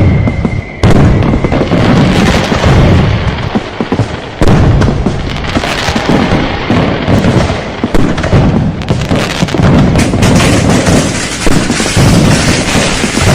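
A dense barrage of firecrackers going off, a near-continuous crackle of bangs with deeper booms among them. It breaks off briefly twice, just before about one second and again around four seconds in, and each time comes back abruptly at full strength.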